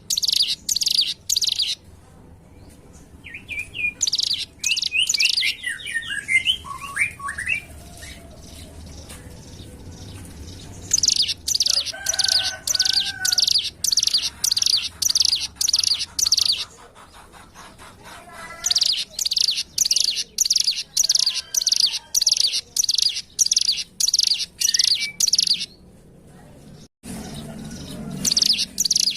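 A ciblek gunung (mountain prinia) calling: long runs of sharp, high chirps repeated about three times a second, broken by pauses of a few seconds, with a softer, twisting warble in one of the gaps.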